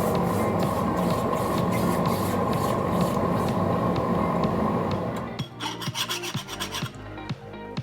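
A steel file rasped back and forth across a freshly quenched, hand-forged steel chisel in quick repeated strokes, a file test of whether the steel has hardened. A loud steady rushing noise runs under the strokes for about the first five seconds and then stops, leaving the scraping strokes clear.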